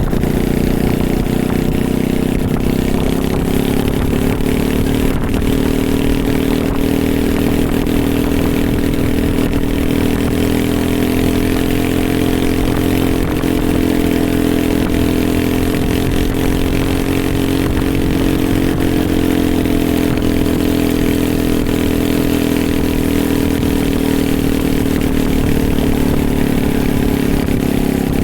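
Small single-cylinder pressure-washer engine powering a homemade mini bike, running continuously, its pitch drifting gently up and down.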